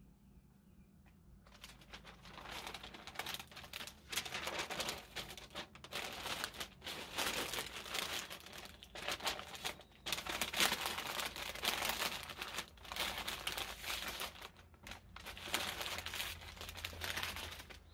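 Stiff butcher paper crinkling and rustling in irregular bursts as it is folded and wrapped tightly around a smoked pork butt, starting about a second and a half in.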